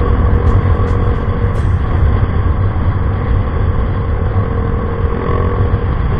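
Yamaha Mio i 125 scooter's single-cylinder engine running through an Apido pipe V3 aftermarket exhaust while riding, a steady loud rumble mixed with wind on the microphone. A faint steady tone in the mix fades out near the end.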